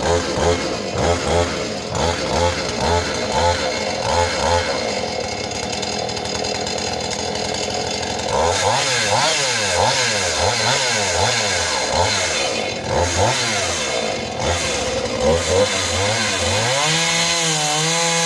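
Husqvarna 450e 50.2 cc two-stroke chainsaw running, pulsing unevenly at first, then revved up and down over and over from about halfway, with a held high rev near the end.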